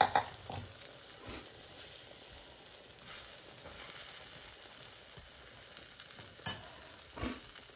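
Beaten egg and butter-browned biscuit pieces sizzling steadily in a frying pan over a lowered gas flame, with a few light clinks of a fork against the bowl and pan, the sharpest near the end.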